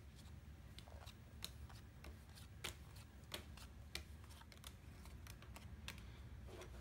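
Playing cards being dealt by hand one at a time onto a wooden tabletop: faint, soft flicks and taps at an uneven pace.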